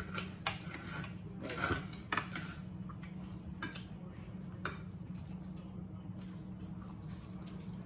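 Knives and forks clicking and scraping on plates while steak is cut, in scattered irregular strokes over a steady low hum.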